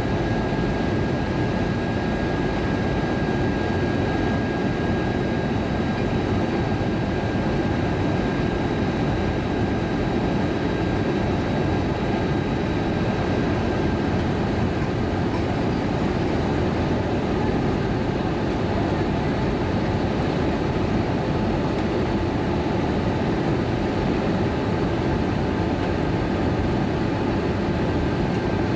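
Steady in-flight cabin roar of an Airbus A320-232 heard from a window seat beside the wing engine: the IAE V2500 turbofans and rushing airflow, with a faint steady high whine over the top.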